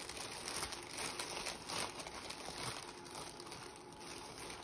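Crinkling and rustling of craft materials being handled, a dense run of small crackles, as pieces of lace trim are rummaged through; it eases off toward the end.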